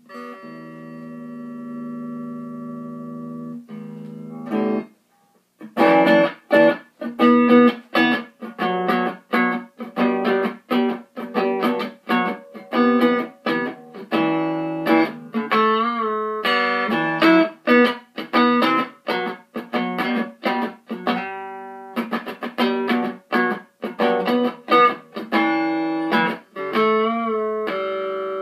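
Clean electric guitar through an Orange Micro Terror amp with the gain turned down. A chord rings for about four seconds, then comes a run of quickly picked notes and chords with a couple of vibrato bends.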